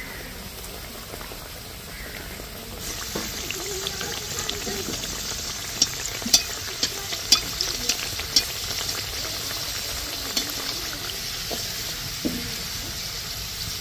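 Refined vegetable oil sizzling as a stuffed pastry deep-fries in a metal karahi on a low flame; the sizzle grows louder about three seconds in as the piece is turned. A perforated steel slotted spoon clicks sharply against the pan several times in the middle.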